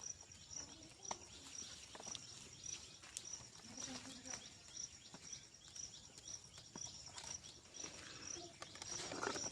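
Pet rose-ringed parakeet making soft chirps and clicks, louder near the end, over a steady high-pitched chirp that repeats about twice a second.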